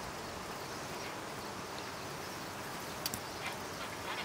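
Steady, even background hiss of outdoor ambience, with a light click about three seconds in.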